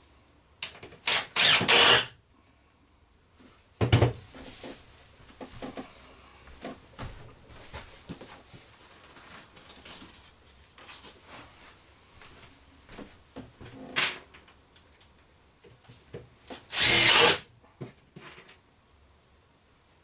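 Power drill/driver running in short bursts, driving screws to fasten a 2x2 brace under the countertop's OSB edge. The longest runs are about a second in and near the end, with a brief burst around four seconds. Light knocks and handling noise come between the runs.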